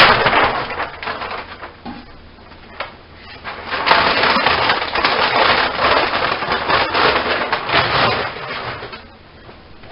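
Old Stits Poly-Fiber aircraft fabric, stiff with its painted finish, crackling and crinkling as it is crumpled up and stuffed into a plastic trash can. This runs from about four seconds in to just before nine seconds. The first second holds the fading end of the fabric being ripped away.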